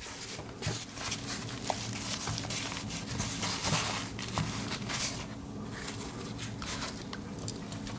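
Rustling and scattered small clicks of Swiss Army pocket knives and a fabric organizer pouch being handled, over a steady low hum.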